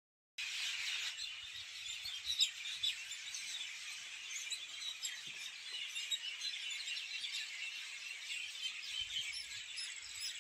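Many small birds chirping at once in trees, a dense, steady chorus of high chirps overlapping one another.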